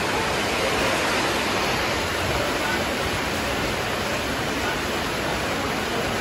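Heavy rain falling steadily on a flooded street, an even hiss.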